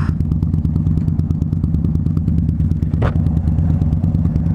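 Harley-Davidson Dyna Street Bob's V-twin engine running steadily under way, heard from the bike with a rapid even pulse. A brief high chirp about three seconds in.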